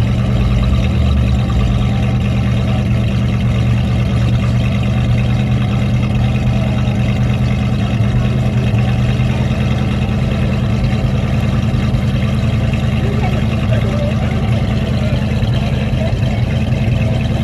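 Ford Mustang Mach 1's V8 engine idling steadily.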